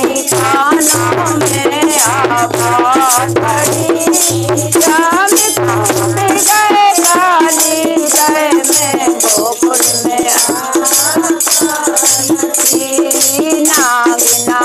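Women singing a Hindi devotional song (bhajan) together in chorus, keeping time with steady rhythmic hand-clapping.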